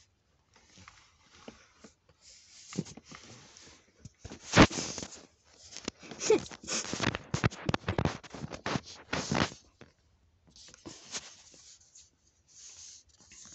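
Handling noise from a phone held against clothing: irregular rustling and scraping of fabric with short knocks. The loudest bump comes about four and a half seconds in, and the busiest stretch of rubbing is between about six and ten seconds.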